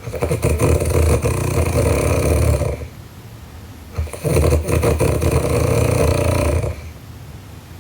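A sleeping girl snoring loudly: two long snores, each with a fast flutter, separated by a pause of about a second.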